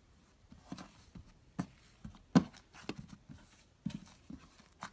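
Thick, matte slime being pressed and folded by fingers, giving irregular sticky clicks and pops, the loudest about two and a half seconds in.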